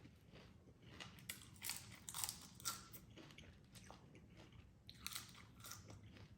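Close-miked chewing and crunching of a crisp salad with raw onion: irregular crisp crunches, clustered about one to three seconds in and again around five seconds, at a low level.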